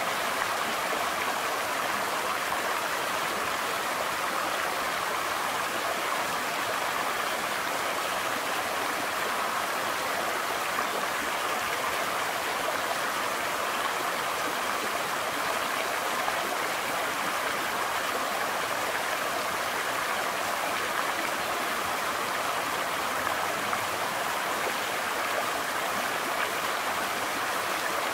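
Shallow mountain stream rushing steadily over rocks and small rapids.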